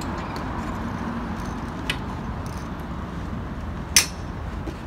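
Metallic clinks from strapping a duffel bag to a motorcycle's sissy bar with a long bungee cord: a light click near two seconds in and a sharper, louder clink about four seconds in, over steady street background noise.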